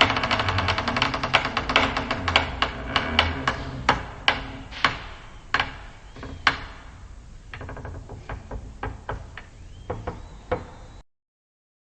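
Slow creaking of a door hinge: a fast run of clicks that spaces out into slower, separate ticks, with a few quicker clusters, then stops shortly before the end.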